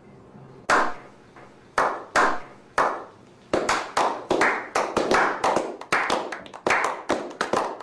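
A slow clap: a few single hand claps spaced out, then from about three and a half seconds in more hands join and the clapping quickens into brisk applause from a small group.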